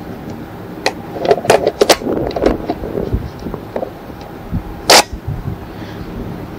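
Sharp metallic clicks and clacks of a rifle being handled, then about five seconds in a single very loud, sharp gunshot on the firing range.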